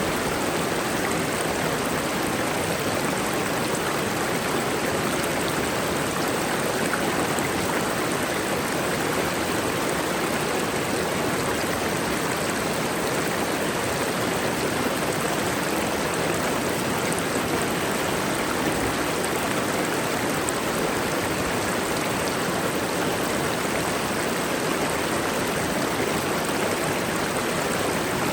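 Mountain waterfall: water falling and rushing over rock with an even, steady roar.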